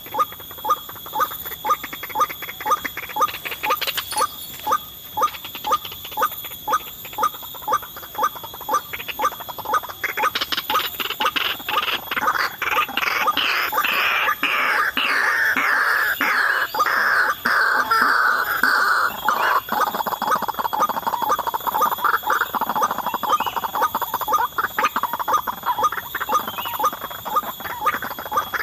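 White-breasted waterhen calls: a harsh note repeated about twice a second, swelling about ten seconds in into a denser, louder run of calls, with a steady thin high tone underneath.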